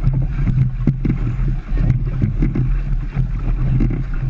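Wind rumbling on the microphone over the water splashing and irregular knocks of oars as a whaleboat is rowed hard.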